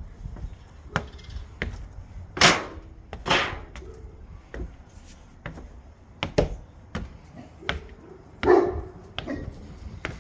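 Footsteps knocking and thudding on weathered wooden exterior stairs and a wooden porch deck, with a dog barking a few times.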